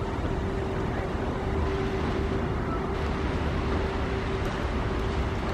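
A river boat's engine running steadily: a low rumble with one steady hum above it, under an even wash of water and wind noise.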